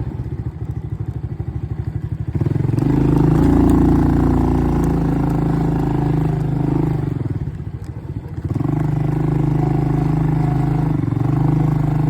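ATV engine running under a rider's throttle, easing off to a slow, pulsing low-rev beat at the start and again around eight seconds in, and pulling with a smooth steady note in between.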